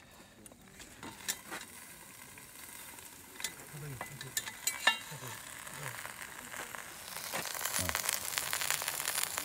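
Food sizzling in a pot hung over a charcoal fire, the hiss growing louder near the end, with a few light metallic clicks as the pot is handled earlier on.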